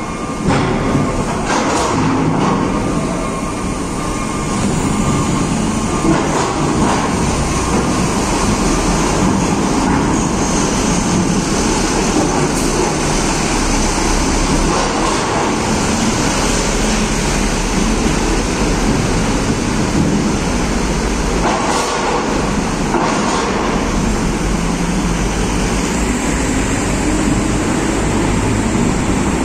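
Heavy diesel buses and trucks driving up the ramp into a ferry's car deck: a steady engine rumble echoing in the enclosed deck, with a few sharp knocks along the way.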